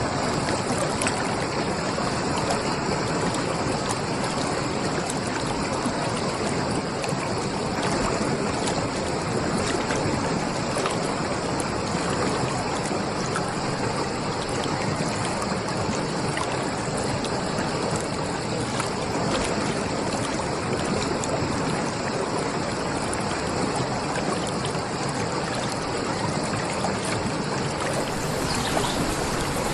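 Flowing stream: a steady, unbroken rush of running water.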